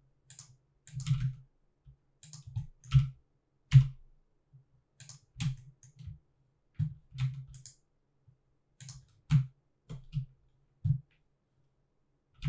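Computer keyboard keys and mouse buttons clicking irregularly, about one or two presses a second, as editing shortcuts are pressed.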